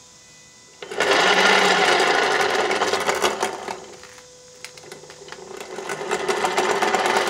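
Hyper9 electric motor driving an outboard's lower unit, spun up in the reverse direction: a loud, busy mechanical rattle that starts about a second in, eases off around four seconds, then builds again.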